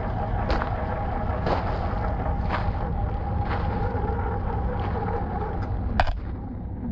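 Drivetrain of a Boomracing D90 RC scale crawler whining steadily as it crawls over loose gravel. Sharp clicks of stones come about once a second, the loudest near the end. Wind rumbles on the microphone.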